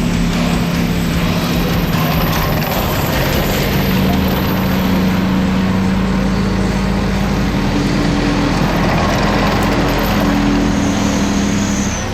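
Tank engines running loud and steady as the tanks drive, a deep drone over a dense rushing noise. The drone's pitch rises slightly a few seconds in.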